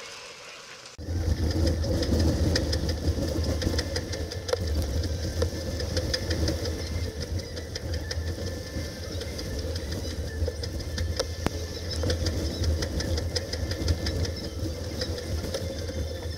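Steady low rumble with a hiss of wind and water and frequent sharp clicks, picked up by a camera on the foredeck of a sailing yacht driving through rough sea. It starts abruptly about a second in.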